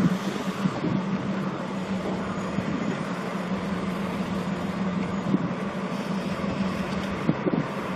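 Diesel-hauled train of 12-series coaches moving slowly while shunting: a steady low diesel hum over an even rolling noise.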